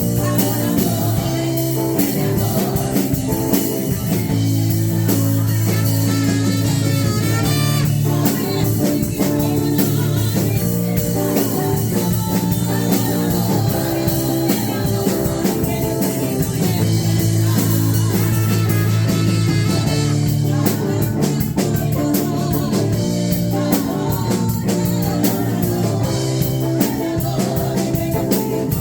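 Live worship band music: guitar and drum kit playing a steady song, with singing at times.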